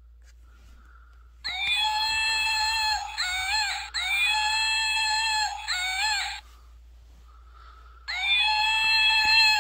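Sound chip in a long-armed monkey plush toy playing its electronic monkey scream: shrill, steady shrieks with some notes sliding up and down. It comes in two runs, the first lasting about five seconds, the second starting near the end after a short pause.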